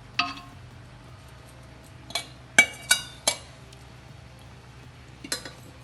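Metal cooking utensils clinking against a metal pot: about six sharp clinks, each with a short ring, one early, a quick cluster of four in the middle and another near the end.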